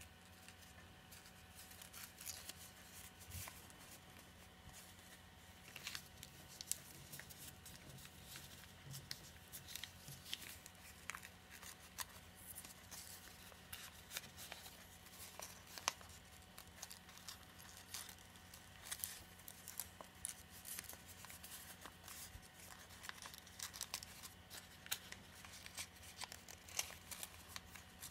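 A sheet of origami paper being folded, pinched and creased by hand along its pleats: faint, irregular crackles and rustles of the paper.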